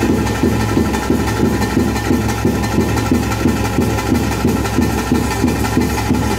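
Ritual drumming from a temple band, a fast even beat of about three strokes a second over a steady low drone, accompanying a Tulu daiva kola (nema) dance.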